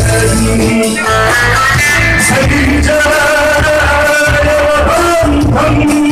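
Music from a Turkish song: a melody line of held, shifting notes over a steady bass and beat.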